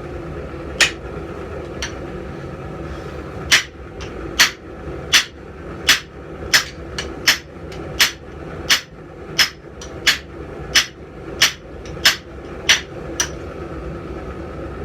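Hammer blows on hot steel on an anvil while forging a bick horn. Two single blows come first, then after a short pause a steady run of about three blows every two seconds, which stops a little before the end.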